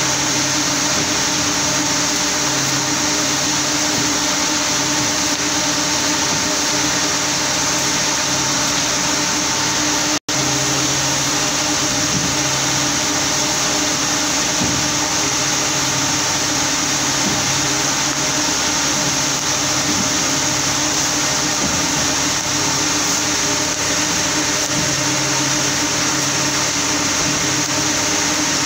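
Steady din of textile mill machinery: a constant loud hiss with a steady hum beneath it, cutting out for an instant about ten seconds in.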